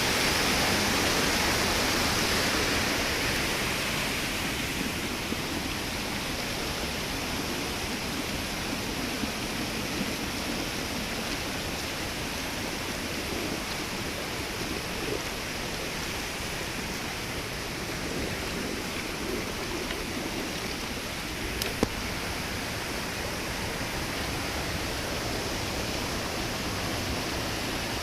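Flowing water rushing steadily, a little louder for the first few seconds. A single sharp click comes about 22 seconds in.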